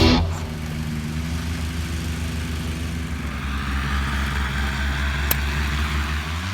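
Paramotor engine running steadily at a low, even speed.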